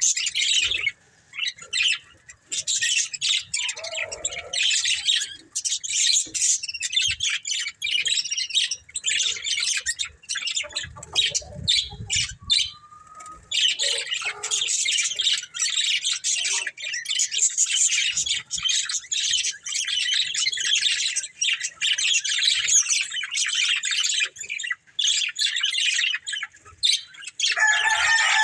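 Budgerigars chattering and chirping nonstop in quick, busy warbles, with a short lull about halfway. A longer falling call comes in near the end.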